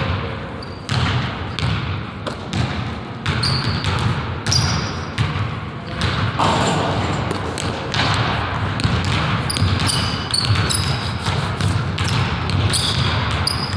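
Basketball bouncing repeatedly on a hardwood gym floor during a pickup game, with short high sneaker squeaks scattered throughout.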